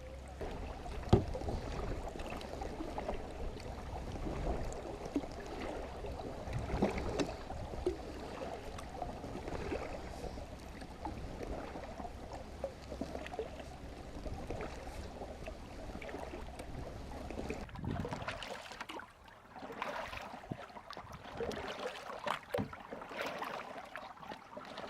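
Water splashing and trickling around a kayak, with small knocks and clicks from the boat and gear; a sharp click about a second in. A low steady rumble underneath stops about 18 seconds in.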